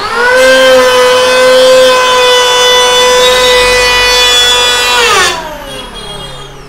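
Dong Cheng electric hand planer finishing its spin-up to a steady high whine and taking a single pass along the edge of a hard teak board. About five seconds in it is switched off, and the whine falls slowly in pitch as the cutter block coasts down.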